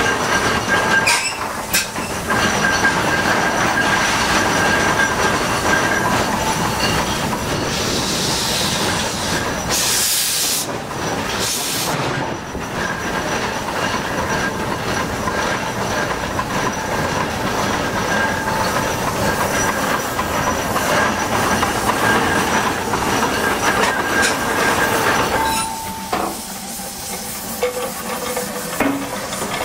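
Ruston Proctor steam excavator working: its steam engine and winch gear running with a dense mechanical clatter, and two short bursts of steam hissing about ten and eleven and a half seconds in. The clatter eases a little near the end.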